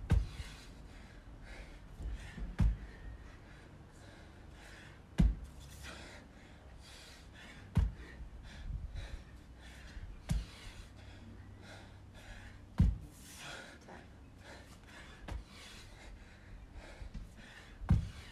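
A dumbbell thudding down onto rubber floor mats about every two and a half seconds during alternating dumbbell snatches, with heavy gasping breaths between the thuds.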